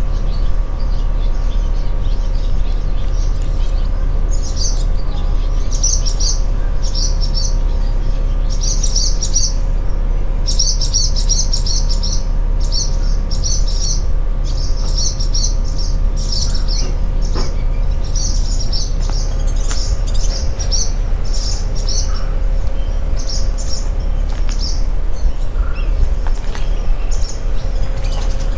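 Barn swallows giving bursts of rapid, high alarm chirps over and over, mobbing a cat resting beneath their nest of chicks. The calls start a few seconds in, come thickest in the middle and thin out near the end, over a steady low rumble.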